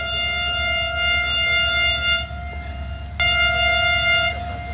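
HGMU-30 diesel locomotive's air horn sounding a long steady blast that cuts off about two seconds in, then a second, shorter blast a second later, over a low engine rumble.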